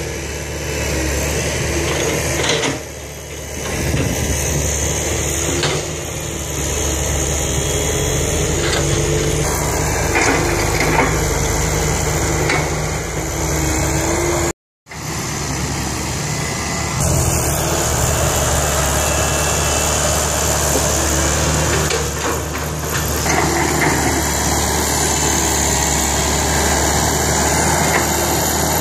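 Heavy diesel engines running steadily: a six-wheel dump truck driving on a dirt track, then, after the sound cuts out briefly about halfway, a Komatsu crawler excavator's engine working as it digs.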